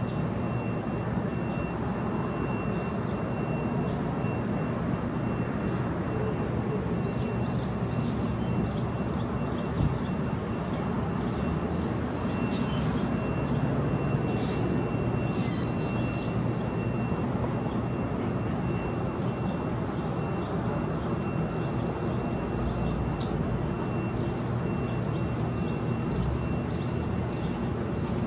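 Pig frogs grunting in a low, continuous rumbling chorus. Short high bird chirps come every second or two, most often in the second half, over a faint steady high whine.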